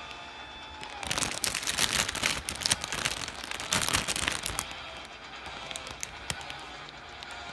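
Plastic packaging crinkling and crackling as it is handled during a model-kit unboxing, in a dense spell about a second in that thins to scattered crackles after about four seconds.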